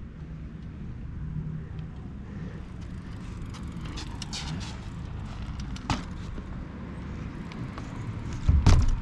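A mountain bike riding and wheelieing on asphalt against a steady low rumble. There is a sharp click about six seconds in, and a heavier thump near the end, the loudest sound.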